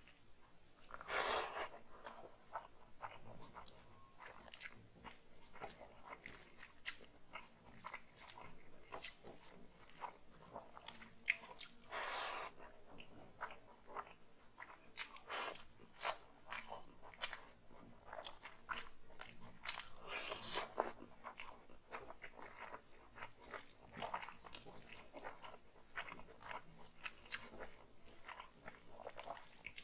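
Close-up eating sounds of chicken curry and rice eaten by hand: wet chewing and smacking with many small mouth clicks, and squelching of rice being mixed into the curry with the fingers. A few louder, longer noisy sounds come several times through.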